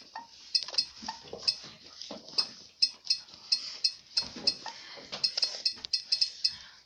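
Typing on a phone's touchscreen keyboard: quick, irregular clicky taps, several a second, coming in short runs with brief pauses.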